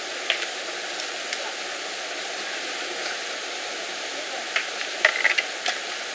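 Digging tools striking soil and stones in scattered knocks, with a quick cluster of strikes near the end, over a steady rushing noise.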